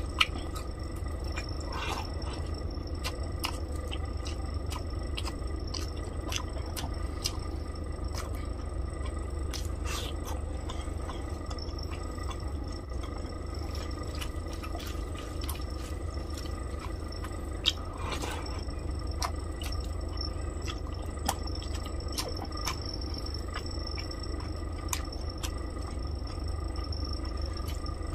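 Close-up eating sounds: chewing and fingers mixing rice with fish curry by hand, heard as many small clicks and smacks over a steady low hum.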